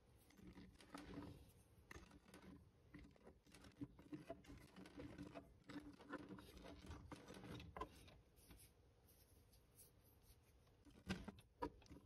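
Faint clicks and taps of miniature glass soda bottles being handled, lifted from and set down in a small plastic crate and on a tabletop, with two sharper knocks near the end.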